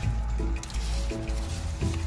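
Music with a bass line, short held notes and a steady beat of light high ticks.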